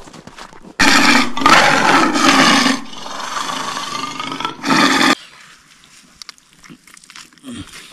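A big cat's roar, loud and drawn out, starting abruptly about a second in and cutting off sharply about four seconds later after a final swell.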